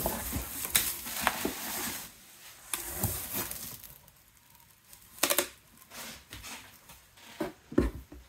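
Bubble wrap and plastic crinkling and cardboard rustling as boxed toys are handled inside a shipping carton. Later come a few sharp knocks of cardboard boxes bumping against each other.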